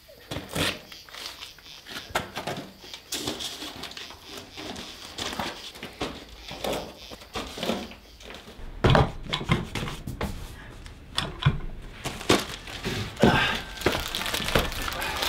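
Plastic mailer parcels crinkling as they are handled, with irregular knocks and thuds from packages being moved.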